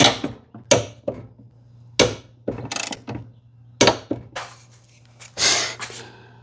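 Ratcheting torque wrench tightening an inverter wire terminal: a series of sharp ratchet clicks and short ratchet runs, with a longer rasp near the end. The terminal is being cranked tighter than its 93 inch-pound spec, which the owner puts down to the wrench not being set properly.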